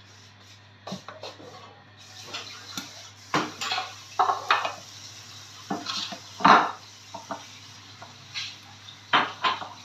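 A metal utensil clinking and scraping against a non-stick wok while stirring oil, in about a dozen irregular knocks and scrapes. The loudest comes about six and a half seconds in, over a steady low hum.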